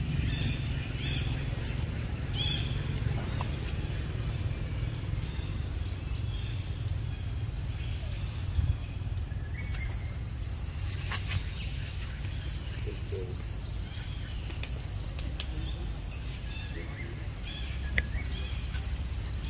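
Outdoor ambience of a steady, high-pitched insect drone over a low rumble, with a few short bird chirps in the first few seconds and a couple of sharp clicks later.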